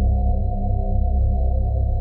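Creepy suspense sound effect: a dark, low ambient drone of several layered tones held steady.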